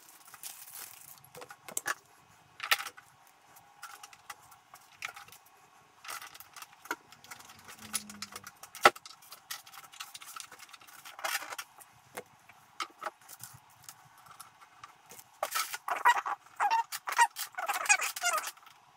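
Metal screws and a metal monitor stand being handled and fitted onto the plastic back of a monitor: scattered clicks and light metallic jingling, one sharp click about nine seconds in, and a busier run of clattering and scraping near the end.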